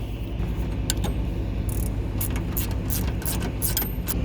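Ratchet wrench clicking in quick strokes, about four or five clicks a second from a second or so in, backing out the 8mm screws that hold a Ford Super Duty hood latch, over a steady low hum.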